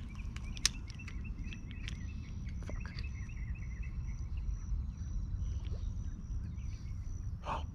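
Outdoor ambience: wind rumbling on the microphone, with small birds chirping and a steady high insect trill. A single sharp click comes about half a second in.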